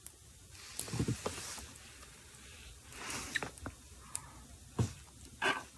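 Faint scattered clicks and taps with a couple of soft breathy hisses: handling and mouth noises close to a phone's microphone.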